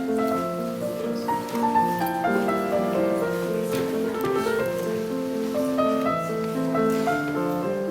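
Background music: a simple keyboard tune of short held notes moving over a lower line.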